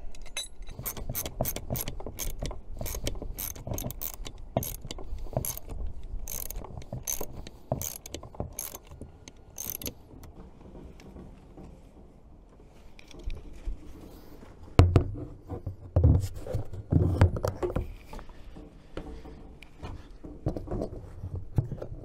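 Ratchet wrench clicking in quick runs as bolts are tightened on a boat's steering helm bracket. This fades out after about ten seconds, and a few heavy knocks and bumps follow as the helm is set against the plastic console.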